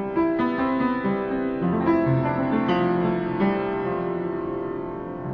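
Piano playing a series of chords, a new chord or note about every half-second at first, the last one held and fading.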